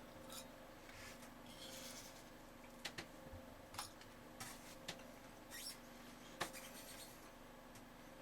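Near-quiet room with a faint steady hum and a handful of soft, short clicks scattered through the middle, roughly one a second.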